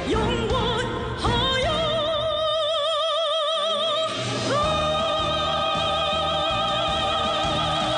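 A song: a high voice holds long notes with a strong, even vibrato over instrumental accompaniment, a new held note starting about four and a half seconds in.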